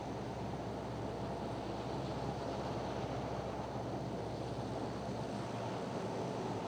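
C-130H Hercules' four Allison T56 turboprop engines running steadily as the aircraft taxis, a constant low drone with a faint hum underneath.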